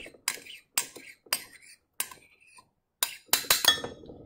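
Sharp clinks and taps against a glass Pyrex measuring cup in a double boiler as the last of the jojoba oil is emptied into it. There are about nine scattered strikes, with a quick run of them near the end, and some ring briefly like glass.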